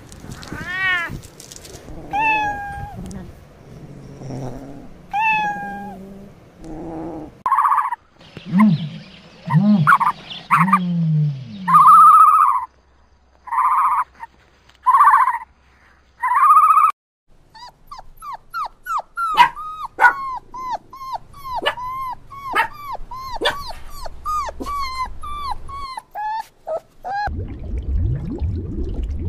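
A kitten meowing a few times, followed by a series of other animal calls, and then a long run of quick, high, falling chirps like young birds peeping.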